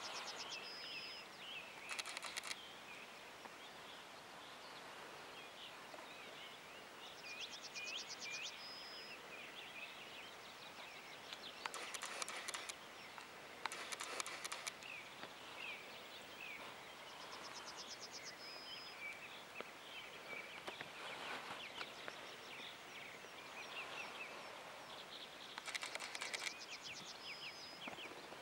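Roe deer barking: a few short, harsh barks spaced several seconds apart, two of them close together in the middle, with a small bird repeating a trilled song phrase throughout.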